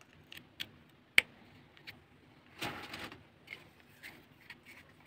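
Small plastic clicks and cable-handling noise as a USB plug is pushed into a phone-charger adapter and the wire is moved about: several short clicks, the sharpest about a second in, and a brief rustle near the middle.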